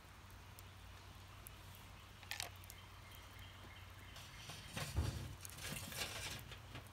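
A green wooden stick is pushed through the side of a burning tin-can hobo stove, scraping and knocking against the metal and the burning wood, with a heavy thump about five seconds in. A single sharp click comes a little after two seconds.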